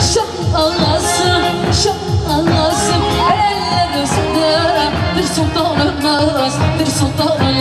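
Upbeat Turkish dance music with singing over a steady, driving drum beat.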